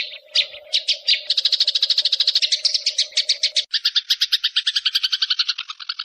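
Songbird recording: a few separate high chirps, then from about a second in a fast, even trill of short notes at roughly ten a second, dropping slightly in pitch a little before four seconds in. A faint low steady hum underneath stops at that point.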